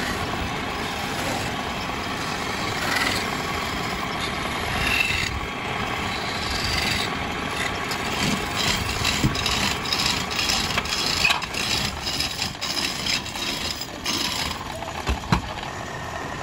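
Wood lathe running while a hand-held chisel scrapes and cuts into a spinning wooden bed leg, a steady motor sound under the rasp of the tool. In the second half the cutting turns choppier, with many short clicks and knocks.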